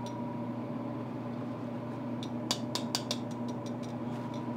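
Steady hum of kitchen ventilation fans. About halfway through comes a quick run of five or so light clicks and taps.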